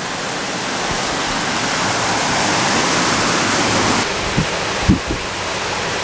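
Steady rush of a waterfall pouring into a rock-walled pool. About four seconds in the sound drops slightly, and a few brief low knocks follow.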